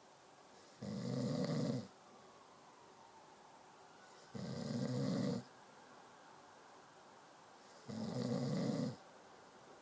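Snoring: three snores about a second long each, coming at an even pace roughly every three and a half seconds, with quiet breathing gaps between.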